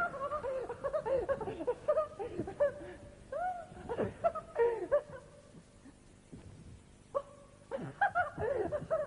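A voice making yelping, whimpering and wailing sounds in quick sliding squeals, rising and falling in pitch, with a short lull a little past the middle.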